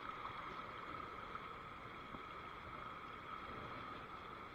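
Steady rush of a fast river running over rapids, with a faint steady high hum over it.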